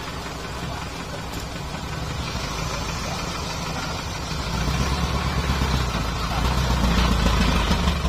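Diesel engine of a dump truck running, growing louder about halfway through and again near the end, while the raised tipper bed comes back down.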